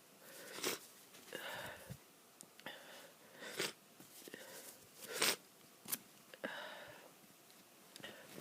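A person with a stuffy nose sniffling and sneezing, with several short sharp bursts and breathy stretches between them.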